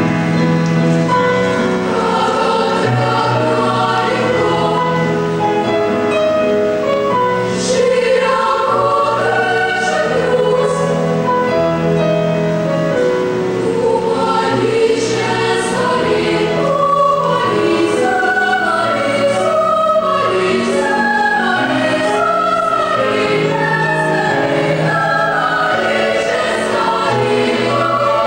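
Children's choir of girls singing together, a sustained choral song at a steady level.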